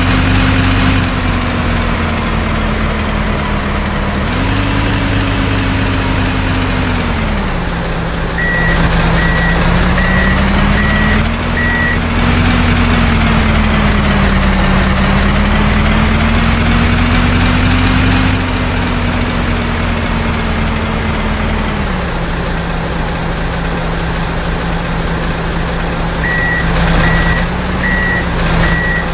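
Heavy vehicle engine running loudly, its note rising and falling as it is revved, with a reversing alarm beeping about twice a second for a few seconds and again near the end.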